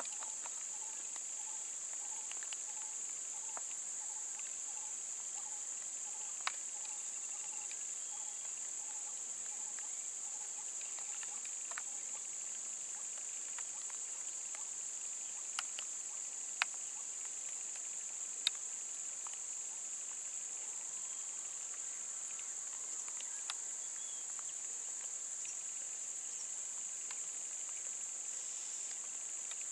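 Steady high-pitched drone of insects, with a faint evenly repeating note for the first dozen seconds and a few sharp clicks near the middle.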